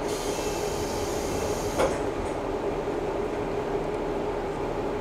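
Kiha 11 diesel railcar idling, heard from inside the car as a steady hum. A hiss of air for about two seconds ends in a single thud about two seconds in, as the sliding doors close.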